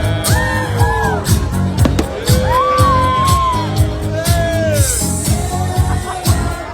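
Pop music with a sung vocal line of long, bending held notes over a steady drum beat of about two beats a second.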